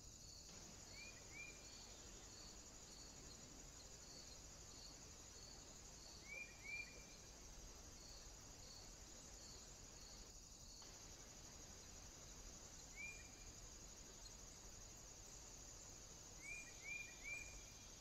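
Faint outdoor quiet with a steady high insect buzz and a regular faint chirp about twice a second that stops about halfway. Over it a small bird gives short downward-sliding chirps in twos and threes: twice early on, once near the middle and three times near the end.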